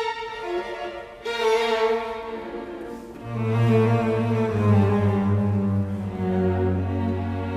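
Background music with bowed strings: sustained violin and cello notes over a low held bass.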